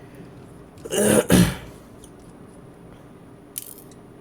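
A man clears his throat with two quick rasps about a second in. A faint small click follows near the end.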